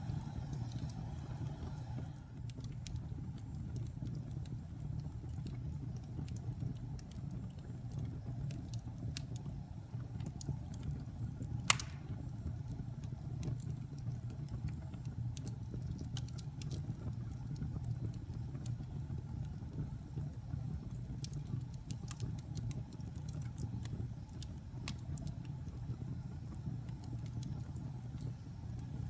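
Wood fire crackling over a steady low rumble, with scattered small pops and one sharp, loud pop near the middle.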